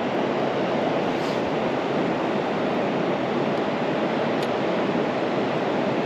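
Steady rushing of river current over rocks, an even wash of water noise with no break.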